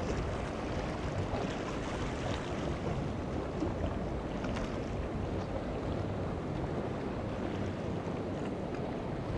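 Steady wash of water: small waves breaking against a rock jetty and the hull of a grounded boat, with wind on the microphone.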